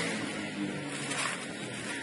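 Plastic bag and dry leaves rustling as they are handled, a few faint crinkles over a steady background hiss.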